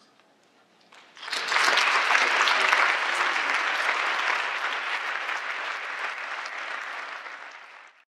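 Audience applause that starts about a second in, loud and dense, then gradually dies down before cutting off abruptly near the end.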